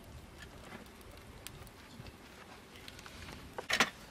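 Faint scattered ticks over a quiet background, then a short, sharp clatter of a few quick knocks near the end.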